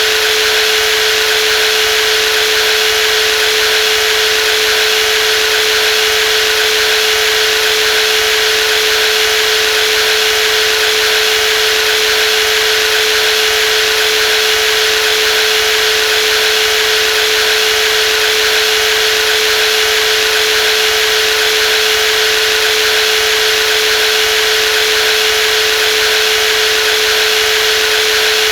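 Brushless jigsaw running steadily at constant speed: one unchanging mid-pitched whine over a bright, hissing mechanical noise.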